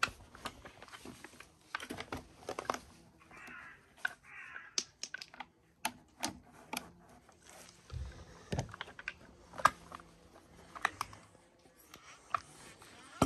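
Scattered clicks and knocks of a stirrup-type PCP hand pump and its braided fill hose being handled and connected to an air rifle's fill port, with a low thud about eight seconds in. Two short harsh sounds come about three and four seconds in.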